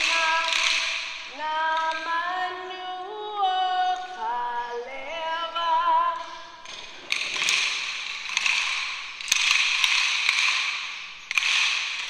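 Singing of a Hawaiian hula song with the clatter of many children's kālaʻau (wooden hula sticks) struck together. About halfway through the singing stops, and the sticks go on alone in repeated clattering rounds about a second long.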